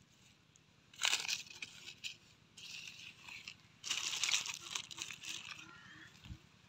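A hand brushing and scraping through dry fallen leaves and sandy soil. There are two bursts of crunchy rustling, about a second in and again around four seconds in, with lighter rustling between.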